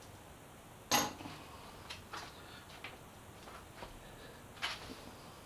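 Light metallic clicks and clinks of bolts and the stay bracket being wiggled loose by hand, with one sharper click about a second in and a few softer ones after.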